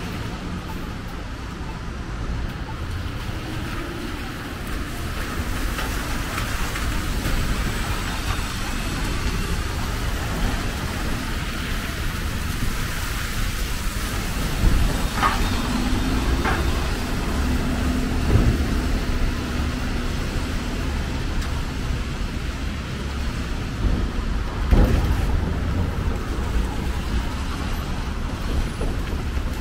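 Traffic on a rain-wet city street: cars and a city bus passing with tyre hiss on the wet pavement over a steady low rumble. There are a few short sharp clicks about halfway through and again near the end.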